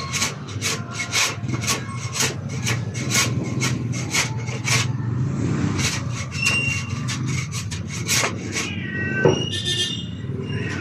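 Rhythmic back-and-forth scraping strokes of a hand tool working a white board panel, about three strokes a second, pausing briefly about halfway and starting again. A short high-pitched cry sounds near the end.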